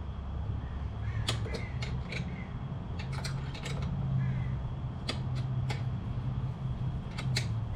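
Scattered sharp metal clicks from hand tools on the rack's mounting bolts as they are snugged up, over a low steady rumble. A few short bird calls sound faintly in the background.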